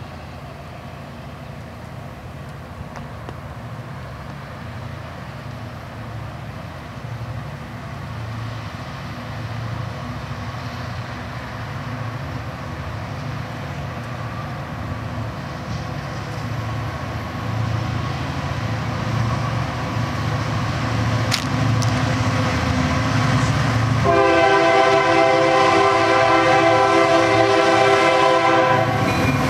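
Union Pacific diesel freight locomotives approaching, their engine rumble growing steadily louder, then a multi-note air horn sounding one long blast of about five seconds near the end.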